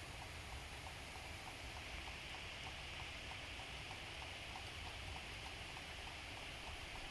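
Steady rain falling in a thunderstorm, an even hiss, with a faint regular ticking about four times a second.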